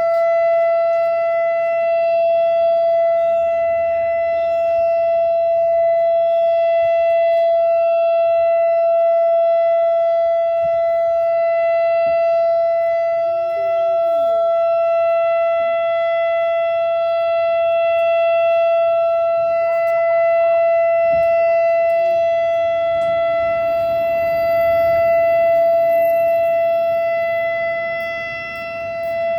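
Outdoor civil defense warning siren sounding its monthly test, a loud steady tone held at one pitch, its loudness dipping briefly near the end.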